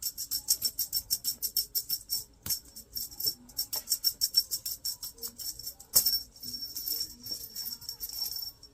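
Small bell jingling in quick, rapid shakes, several runs of them with brief breaks and a couple of sharper jangles.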